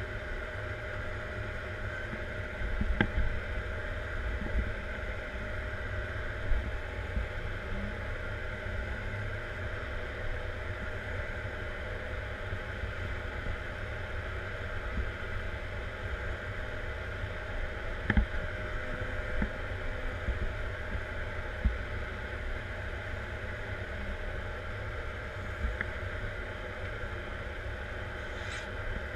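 Caterpillar 140M Series 2 motor grader's diesel engine running steadily, heard from inside the cab, with a deep drone and a few sharp knocks, the clearest about three seconds in and again near the middle.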